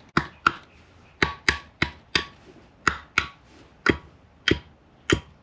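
Wooden-handled hammer tapping on the valve gear of a Honda K24A aluminium cylinder head, about a dozen sharp metallic taps, often in quick pairs, each with a short ring.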